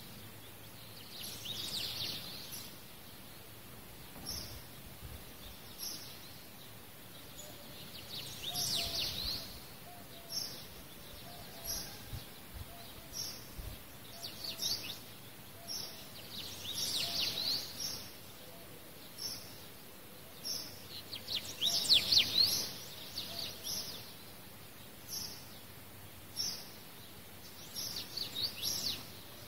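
Small birds chirping in short bursts of quick rising and falling calls every few seconds, over a steady quiet background.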